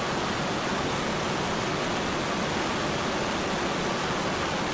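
Jet engine running steadily: an even, unbroken rushing noise with no impacts.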